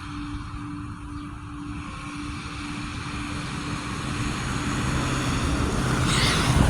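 A vehicle's low rumble, growing steadily louder, with a faint steady hum that fades out about two-thirds of the way through.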